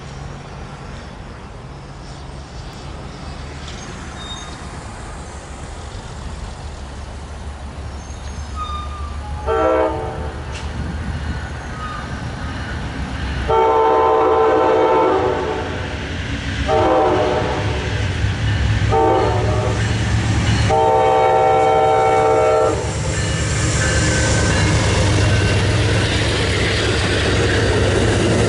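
Amtrak passenger train approaching with a slowly rising rumble. Its locomotive horn gives a short toot about ten seconds in, then sounds the grade-crossing signal of long, long, short, long blasts. After the last blast the train passes close by with a loud steady rumble of the locomotive and cars on the rails.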